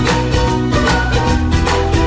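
Background music: an upbeat track with guitar and a steady beat.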